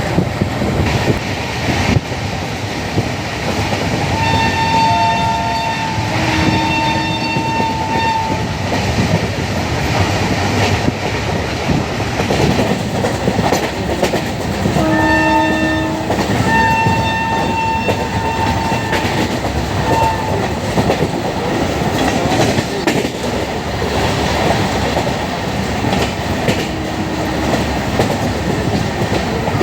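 Shrill Indian Railways train horn: a pair of blasts about four seconds in and another pair around fifteen seconds in, with a short toot near twenty seconds. Under it runs the steady rumble and clickety-clack of a moving train, heard from on board.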